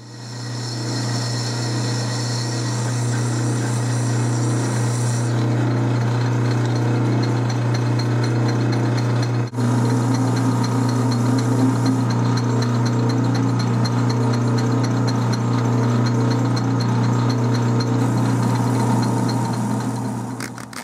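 Atlas 12-inch metal lathe running with a steady motor hum while a 3/4-inch twist drill cuts into a grade 8 steel bolt in the chuck. About nine and a half seconds in there is a brief break, after which the lathe runs on as the hole is bored out.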